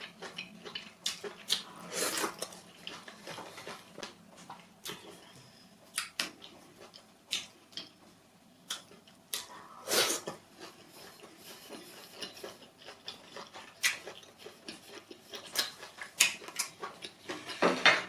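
Close-miked eating sounds: irregular mouth clicks and smacks, with a few louder wet, noisy bursts about 2 s in, about 10 s in and near the end.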